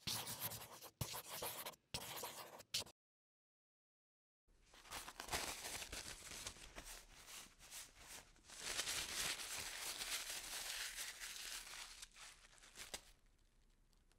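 Pencil scratching on paper in quick strokes: a few short bursts of scratching, a gap of about a second and a half, then a longer run of scratching that fades away near the end.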